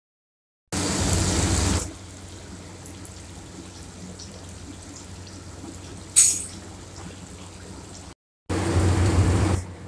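Hot oil sizzling steadily as fish pieces and green chillies shallow-fry in a kadai, with a sharp spatter about six seconds in. The sizzle is much louder for about a second near the start and again near the end, and the sound cuts out briefly just after eight seconds.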